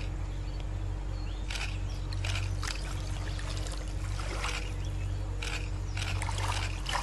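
Shallow river water splashing and sloshing in short bursts as a large crocodile moves under a dangled piece of meat, with a cluster of splashes near the end as it surges up out of the water at it. A steady low rumble runs underneath.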